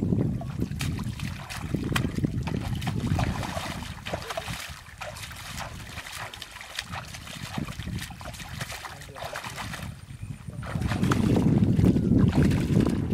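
Wind buffeting the microphone, easing off in the middle and picking up again near the end. Between the gusts, small splashes and sloshing of muddy water as hands grope through a shallow pool.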